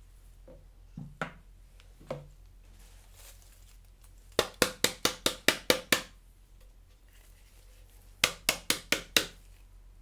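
Hard plastic parts of an Einhell PXC TE-VC 18 Li cordless hand-held vacuum being knocked against a hard surface to shake the dust out while it is emptied. There is a quick run of about nine sharp knocks, then about six more near the end.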